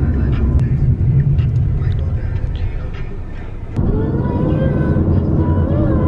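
Steady road and engine rumble heard inside a moving car's cabin. About four seconds in, after a brief dip, a song with a wavering melody starts playing over the road noise.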